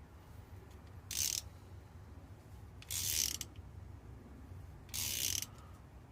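Socket ratchet clicking in three short bursts about two seconds apart as it is swung back between turns, winding a die down a worn bolt to recut its thread.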